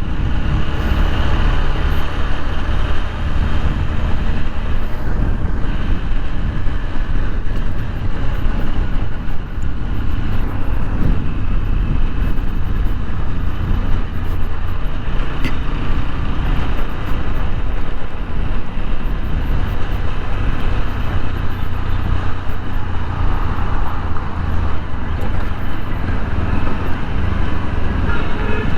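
A TVS Apache RTR 160 4V's single-cylinder engine running steadily under way, mixed with wind and road noise. The tappet noise has stopped now that the loose valve clearance has been adjusted.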